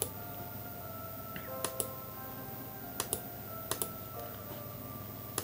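Faint background music with soft sustained notes, over which a computer mouse clicks sharply about six times, two of them quick double clicks.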